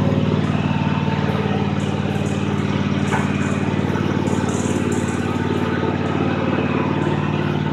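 Toro TimeCutter SS5000 zero-turn riding mower's engine running steadily after its rebuild.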